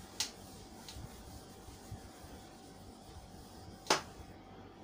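A whiteboard being wiped clean with a duster: a few short, sudden wiping strokes against the board, the loudest near the end, over a faint steady hum.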